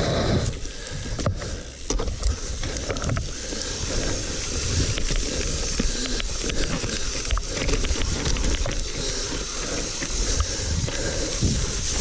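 Mountain bike riding down a damp dirt trail: tyres rolling and crunching over dirt and roots, with frequent clicks and rattles from the bike over bumps.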